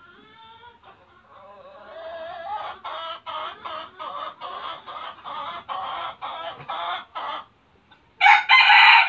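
Red junglefowl calling: a run of clucks, about two a second, then one short, loud crow near the end.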